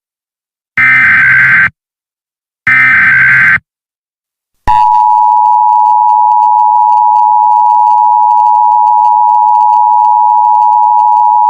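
Emergency Alert System tones: two buzzy SAME header data bursts, each about a second long and a second apart, that encode the alert. About five seconds in, the steady two-tone EAS attention signal (853 and 960 Hz) starts and holds, heralding an emergency alert.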